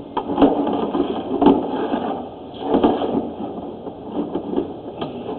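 Irregular knocks and clunks of equipment being handled, over a steady noisy background.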